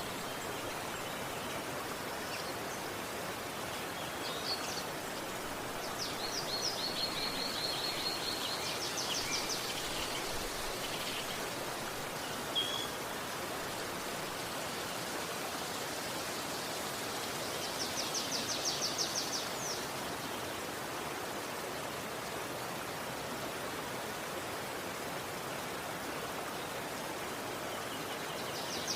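River water rushing steadily, with a few birds calling over it: rapid high trills about six and nine seconds in, a short chirp, and another fast trill about two-thirds of the way through.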